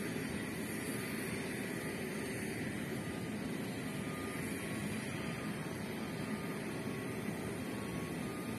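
Boeing 737 jet engines running at taxi power at a distance: a steady rumbling hiss with a faint high whine.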